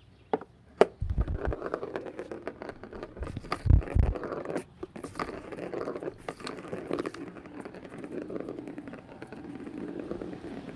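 Plastic cat toy with a ball being knocked about: a run of sharp clicks and scraping, with two low thumps, one about a second in and one near four seconds in.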